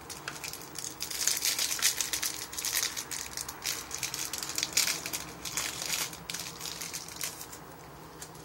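A thin clear plastic card wrapper being torn open and crinkled by hand: a dense crackling that starts about a second in and dies away after about six seconds.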